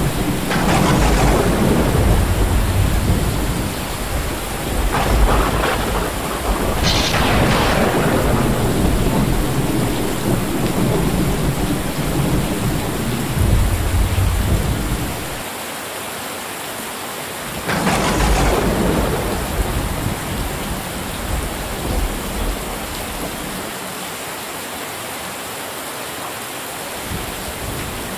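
Heavy rain pouring steadily onto corrugated metal roofs, with thunder rolling several times. Sharp claps come about seven and eighteen seconds in. In two stretches only the rain hiss is left.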